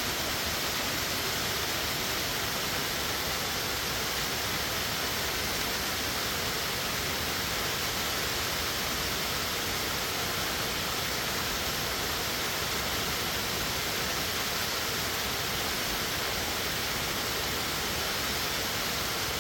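Waterfall plunging about 75 ft into a narrow rock canyon: a steady, unchanging roar of falling water, heavy in hiss.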